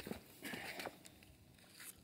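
Faint scuffing and handling noise, with a short rustle about half a second in and a few light clicks.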